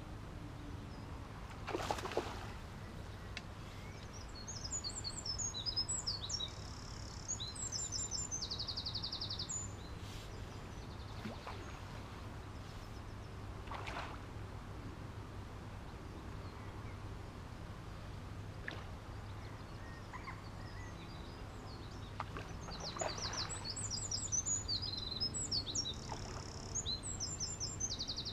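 A songbird sings two bursts of quick, varied chirping phrases with fast trills, one early on and one near the end, over a steady low outdoor rumble, with a few brief soft rustles between.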